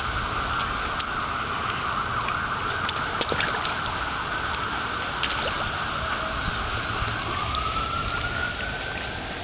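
An emergency-vehicle siren wailing: a steady high tone for most of the time, then a slow rise in pitch near the end. Faint scattered clicks and low rumble under it.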